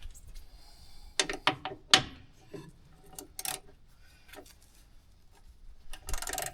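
Hand tools clinking and knocking on metal, several sharp strikes in the first few seconds, then a short rasping scrape near the end, as bolts are worked loose on a combine's hydraulic pump mount.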